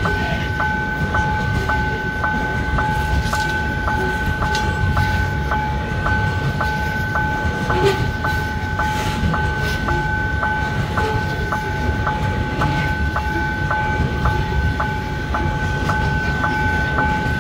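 Freight train of grain hopper cars rolling past with a steady low rumble and scattered wheel clicks. Over it, a level-crossing warning signal sounds a steady two-tone electronic ring that pulses about two to three times a second.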